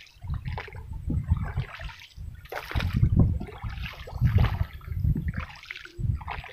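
Water splashing and sloshing around a small boat moving along a river, in uneven surges every second or so.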